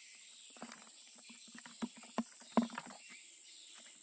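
Steady high chirring of insects, with a run of irregular light knocks and clicks starting under a second in, the loudest a little past the middle.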